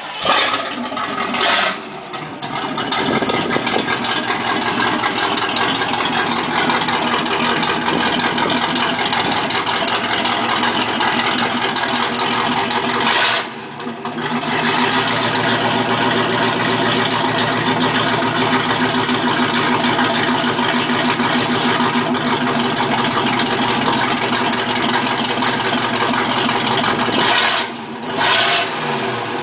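1980 Camaro Z28's 305 V8 running straight off the headers with no mufflers: it starts with a couple of loud bursts, then idles loud and steady. The sound breaks off briefly twice, with a short loud burst near the end.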